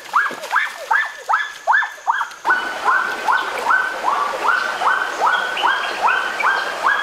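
An animal's call repeated about three times a second, each call a short note rising quickly in pitch. A steady rush of noise comes in underneath about two and a half seconds in.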